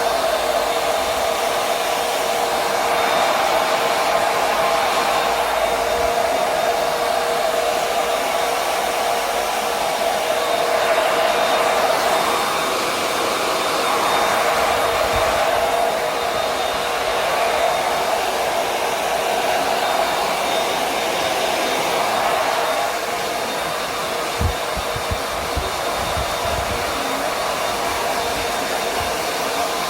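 Hand-held hair dryer blowing steadily with a constant whine, dropping slightly in level about three-quarters of the way through, with a few brief low knocks soon after.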